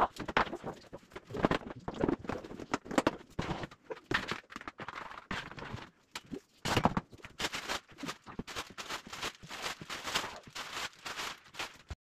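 Household things being shifted about on cupboard shelves: an irregular run of knocks and clatter from plastic food-storage containers and other items being set down and moved.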